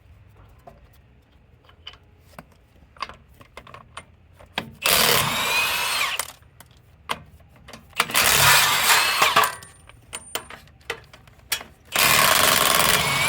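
Handheld power tool run in three bursts of about a second and a half each, loosening fasteners on a truck's rear dually wheel simulators, with scattered metal clicks and knocks between the bursts.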